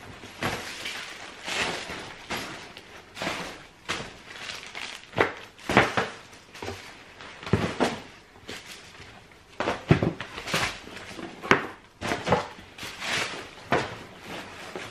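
Secondhand clothing and accessories being picked up, handled and set down one by one as they are counted: irregular rustling with soft thumps and taps.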